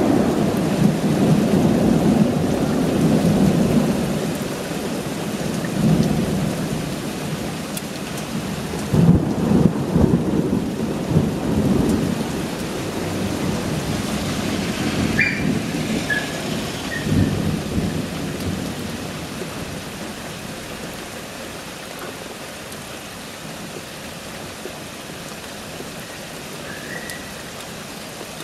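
Thunder rolling over steady rain during a night thunderstorm, the rumbles loudest in the first half and dying away toward the end.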